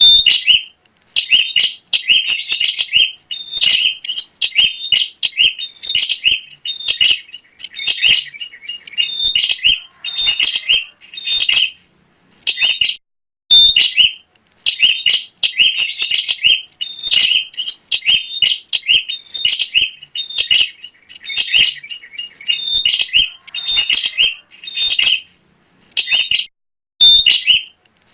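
A prinia (prenjak) singing vigorously: long, rapid runs of sharp, high-pitched chirps, broken by a few short pauses.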